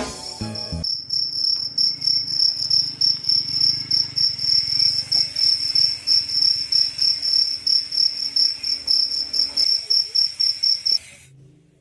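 Insect chirping loudly: a high, steady trill pulsing about three to four times a second, which cuts off suddenly near the end. A moment of music at the very start.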